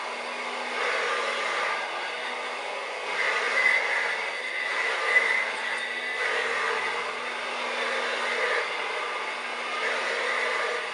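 1930s Hoover Dustette handheld vacuum cleaner running steadily, a motor hum with a whining rush of air that rises and falls every second or two.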